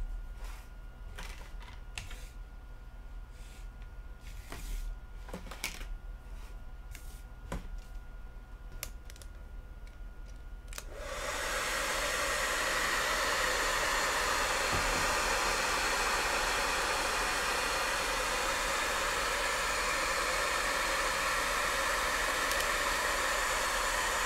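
Scattered light clicks and knocks, then about eleven seconds in a handheld hair dryer switches on and runs steadily on high heat, blowing onto a phone's edges to loosen the back panel's adhesive.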